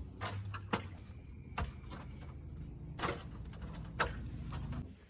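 Four sharp knocks and clanks, about a second apart, from a fiberglass extension ladder being set against the roof edge and climbed, over a steady low hum.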